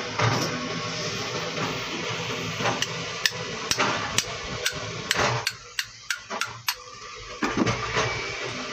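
Hammer striking a power steering pump, metal on metal: about a dozen sharp blows, closest together around the middle, knocking the shaft and its bearing out of the pump housing.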